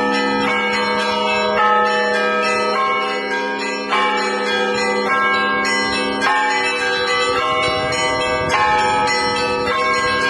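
Orthodox church bells ringing together: several bells are struck in a steady rhythm, a new strike about every second, over the long overlapping hum of bells still sounding.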